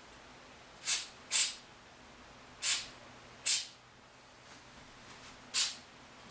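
An aerosol can of silicone spray giving five short hissing bursts, lubricating freshly cleaned diverter solenoid parts.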